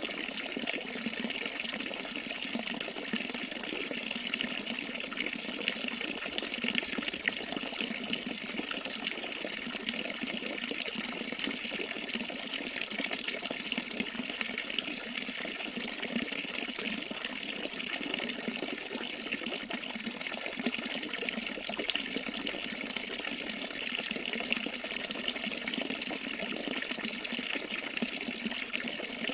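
Running water with a steady, even rush and splash that does not change.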